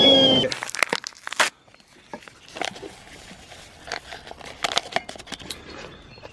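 A camping whistling kettle on a gas stove whistles at the boil; the whistle cuts off about half a second in. Then a sachet of instant coffee is torn open and crinkled as it is emptied into an enamel mug, with scattered paper rustles and small clicks.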